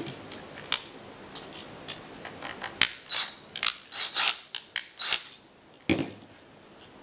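Cordless drill-driver running in short bursts with rapid clicking as it drives down the screw terminals on a duplex receptacle, after a few light handling clicks. A heavier thump comes near the end.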